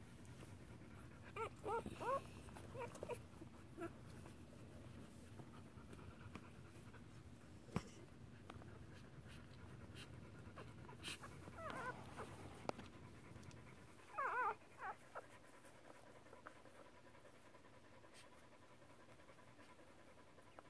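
Faint dog whimpering: a few clusters of short, high, wavering squeaks about two seconds in, around twelve seconds and again near fourteen seconds, from a standard poodle's whelping with newborn puppies present. A low, steady rustle sits under the first two-thirds.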